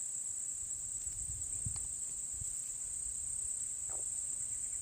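Crickets chirping in a steady, high-pitched chorus with no breaks, with a few faint low thumps about one and a half and two and a half seconds in.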